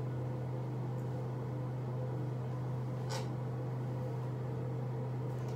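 Steady low hum of a bathroom ceiling exhaust fan running, with a brief rustle about three seconds in.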